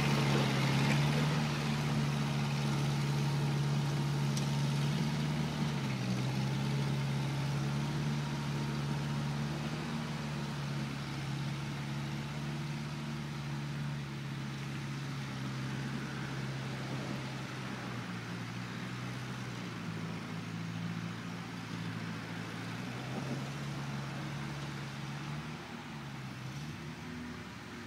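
1950 Ford 8N tractor's four-cylinder engine running steadily under load as it pulls a two-bottom plow, slowly fading as the tractor moves away.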